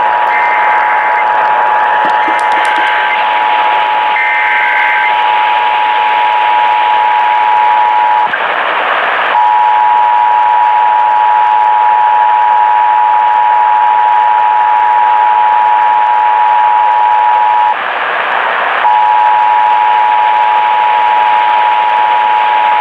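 Emergency Alert System two-tone attention signal received over the radio: a steady dual tone over a constant hiss, broken twice by a gap of about a second.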